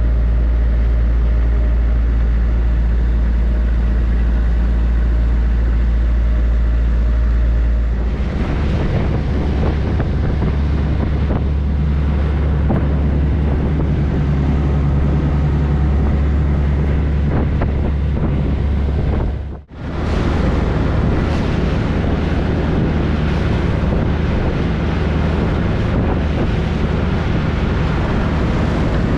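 Boat engine running under way. A steady low engine hum changes abruptly about eight seconds in to a louder run with wind buffeting the microphone and water rushing past the hull. The sound drops out for a moment about two-thirds of the way through, then carries on.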